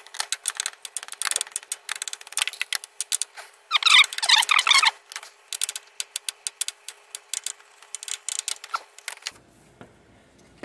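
Ratchet wrench clicking in quick strokes as the last alternator mounting bolt is backed out. A denser, louder run of clicks comes about four seconds in, and the clicking stops near the end.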